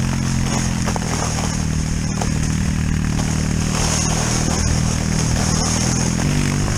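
Four-wheeler (ATV) engine running steadily while towing a sled, its note shifting slightly about six seconds in, over a steady high hiss from the plastic sled sliding over snow.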